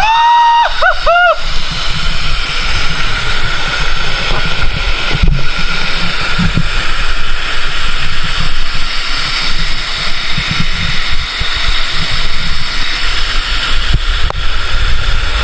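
Waterfall rushing steadily into its pool, a loud even wash of water with an uneven low rumble of wind on the microphone underneath.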